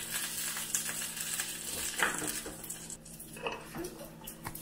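Metal ladle scooping soup from a stainless steel pot and pouring it into a ceramic bowl: scraping and clinking against the pot, with liquid splashing. A sharp clink about two seconds in.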